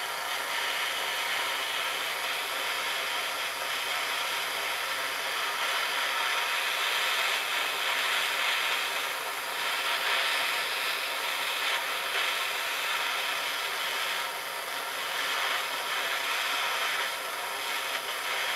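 Bernzomatic plumber's gas blowtorch burning with a steady hiss, its flame heating a copper pipe joint for silver soldering.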